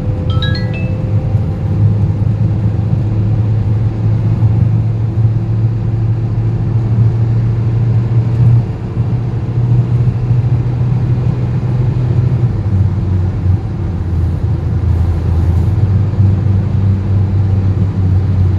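Toyota RAV4 on the move: a loud, steady low droning rumble, the extraneous noise and vibration the owner is documenting. A brief run of short high tones stepping upward sounds about half a second in.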